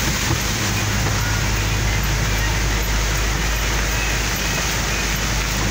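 Heavy monsoon rain on a vehicle's roof and windscreen, a steady hiss heard from inside the cabin over the low hum of the vehicle's engine.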